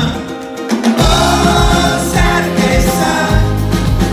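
Live band music recorded from the audience: a male singer with ukulele, drums and bass. The bass and drums drop out for about a second, then the full band comes back in under the singing.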